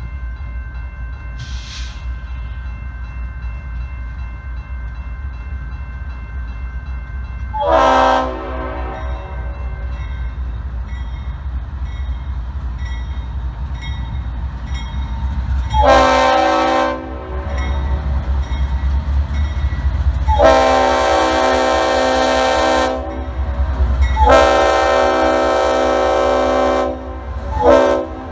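Norfolk Southern diesel freight locomotive's multi-chime air horn blowing for a grade crossing as the train approaches, over the low rumble of its engine growing louder. There is a short blast about eight seconds in and another near sixteen seconds. Then come two long blasts, a short one and the start of a final long one near the end: the long-long-short-long crossing signal.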